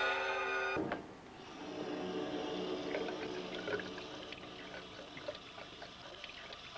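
Music cuts off abruptly under a second in. Then water runs and splashes in a sink as hands are washed, with small drips and splashes throughout.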